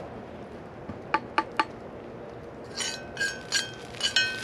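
Cookware and kitchen kit being handled, clinking: three quick light taps about a second in, then a run of sharper clinks that ring briefly with a clear tone.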